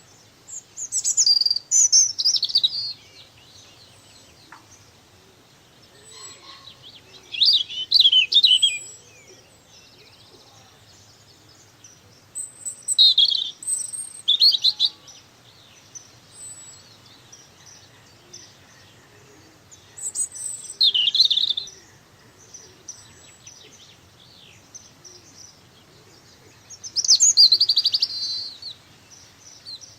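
A songbird singing: five short, high-pitched song phrases, each about two seconds long with fast trills that drop in pitch, repeated every six or seven seconds.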